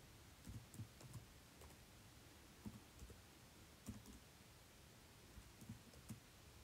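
Faint, unevenly spaced clicks of calculator keys being pressed, about ten presses, over near silence.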